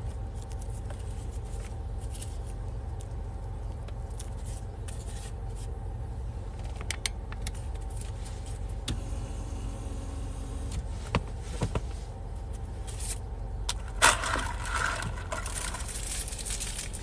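Low steady rumble inside a car's cabin with the engine running, with scattered clicks and rustles and a louder rustling scrape about fourteen seconds in.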